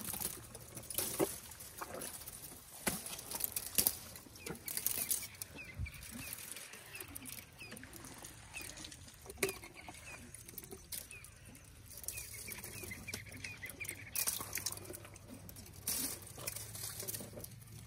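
African elephants chewing and breaking thorn-bush branches: irregular crunching, twig cracks and rustling of the thorny branches as they are pulled to the mouth.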